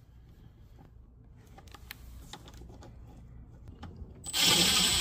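A few light clicks of a Milwaukee cordless driver being set on a Torx T30 bolt. About four seconds in, the driver spins up and runs, backing out one of the charge-port mounting bolts.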